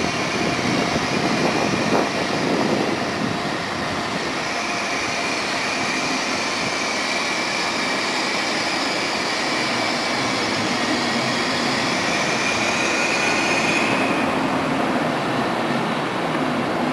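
Passenger train coaches rolling along a station platform, with a steady rumble of wheels on rail and a thin high squeal that rises slightly and stops about fourteen seconds in.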